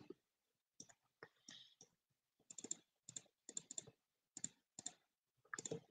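Faint, irregular clicking of a computer mouse and keyboard, some clicks in quick pairs.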